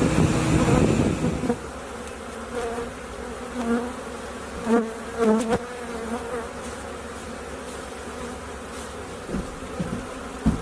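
Honeybees from an opened hive buzzing in a steady hum, louder for the first second and a half, with single bees swelling in pitch and loudness as they fly close past a few seconds in.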